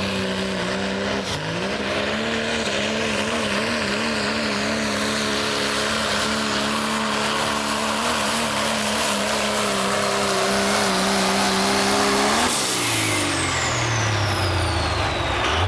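Turbocharged Cummins diesel in a Dodge Ram pulling truck at full throttle dragging a sled: the engine note climbs about a second in and then holds under heavy load, its pitch wavering as the truck fights the sled. Near the end the throttle is cut, the engine drops to a low rumble and the turbo's whistle winds down in a long falling tone.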